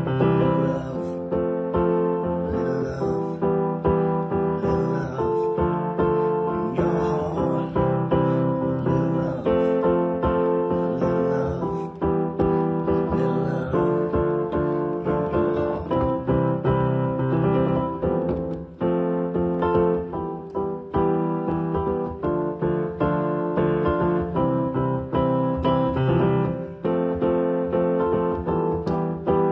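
Piano music, chords played in a steady, even rhythm.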